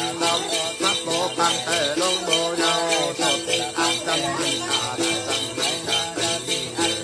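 Traditional then singing from Lạng Sơn: a melodic, wavering voice over a cluster of small metal bells shaken in a steady rhythm.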